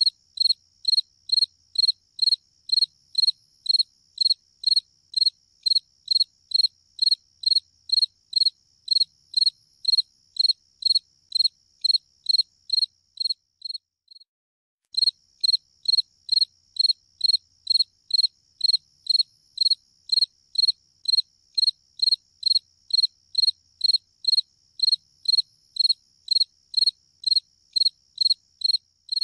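Cricket chirping in a steady rhythm, about two high chirps a second over a fainter continuous high trill. The chirping breaks off for about a second halfway through, then resumes.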